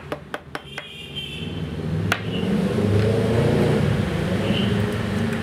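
A few quick taps of a small plastic glitter jar being shaken over slime in the first second. After that a low rumbling noise swells up and holds steady.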